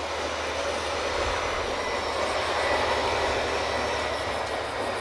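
Drilling rig machinery running with a steady mechanical drone and low hum.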